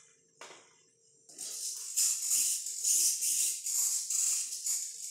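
Pan-and-tilt camera servos on the RC car buzzing in quick, uneven bursts as they follow the head tracker. The bursts start a little over a second in.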